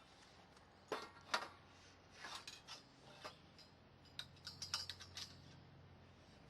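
Metal tent-frame poles and pins clinking against the crown fitting as they are pulled out: a few light clanks, then a quick run of clicks about four to five seconds in.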